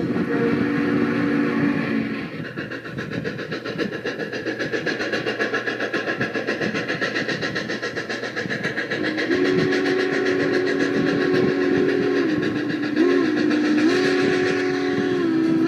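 A train running along the track with a rhythmic clatter, then a two-note train whistle blown in a long held blast with several short dips in pitch near the end.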